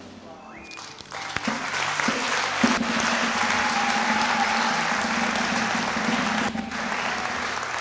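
Congregation applauding, the clapping swelling about a second in and holding strong.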